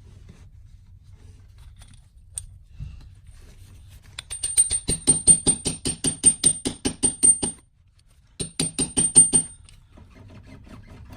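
Hammer striking a bolt in rapid, even blows with a high metallic ring, driving bread into the pilot bearing bore to force the rotary engine's pilot bearing out hydraulically. There are two runs of blows, about six a second, with a short pause between them.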